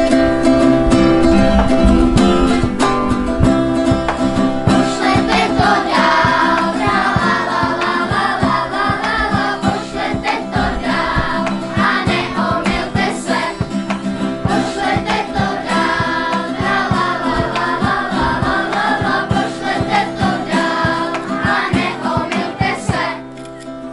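A large group of children and adults singing a song together to two strummed acoustic guitars. The singing eases briefly near the end.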